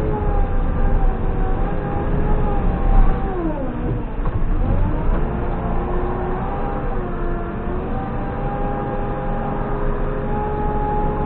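JCB 3CX backhoe loader's diesel engine running steadily; about three and a half seconds in its pitch sags sharply and climbs back within a second or two, then holds steady again.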